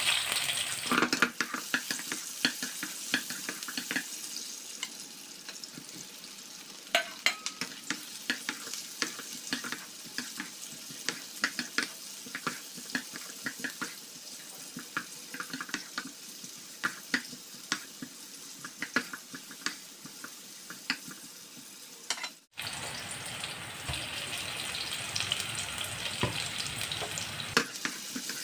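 Bell pepper strips and sliced onions sizzling in hot oil in a wok, loudest in the first second, while a wooden spatula stirs them with frequent small clicks and taps against the pan. A brief break about two-thirds through, after which the sizzle is steadier.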